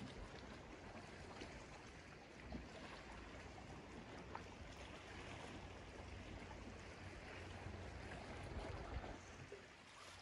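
Faint, steady outdoor background noise: an even hiss with a low rumble underneath and a few soft ticks.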